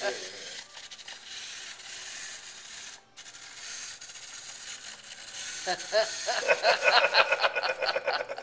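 Clockwork motor of a small wind-up walking toy running with a steady rasping whirr. About six seconds in, a louder rapid run of short pitched sounds, about six a second, comes in over it.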